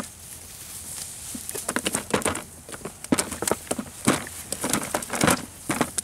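Fish being picked out of a cast net on grass and dropped into a plastic tub: irregular rustling and crackling of the net and grass, with sharp clicks and slaps that come thickest from about a second and a half in.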